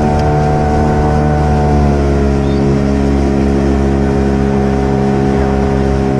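Boat's outboard motor running at a steady speed, its pitch easing down slightly about two seconds in.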